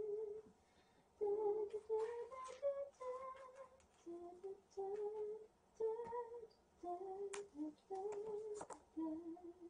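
A woman humming a slow, wordless tune in held notes, in short phrases with brief pauses between them.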